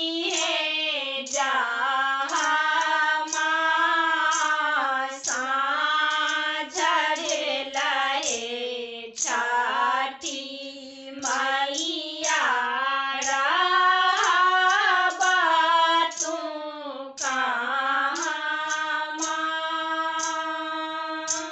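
Women's voices singing a Maithili Chhath Maiya sanjh (kharna evening) folk song together in one melodic line, unaccompanied. The phrase closes on a long held note that fades near the end.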